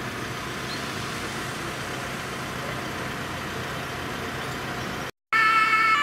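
Steady vehicle engine and traffic noise. Near the end it cuts off and a German emergency vehicle's two-tone siren horn (Martinshorn) starts, loud, its tones stepping between pitches.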